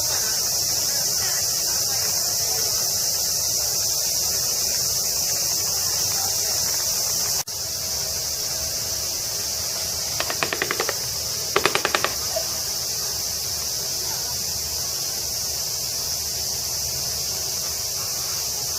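Steady, loud summer cicada chorus, high-pitched and unbroken. About ten seconds in come two short bursts of rapid clattering clicks, about a second apart.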